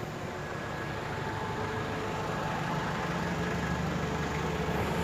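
A motor vehicle's engine running close by, a steady low hum that slowly grows louder.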